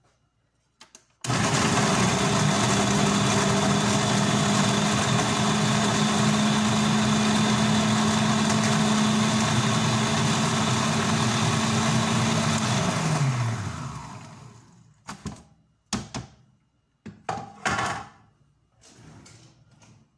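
Food processor motor puréeing tomatoes: it starts abruptly about a second in, runs loud and steady with a constant hum for about eleven seconds, then winds down with a falling pitch as it is switched off. A few knocks and clatters of the bowl and lid follow.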